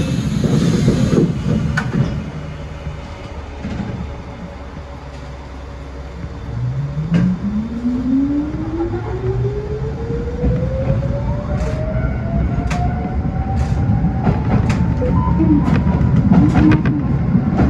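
Electric commuter train running, its traction motor whine rising steadily in pitch as the train accelerates, over a low running rumble. A short hiss at the very start, and scattered clicks of the wheels over rail joints as speed builds.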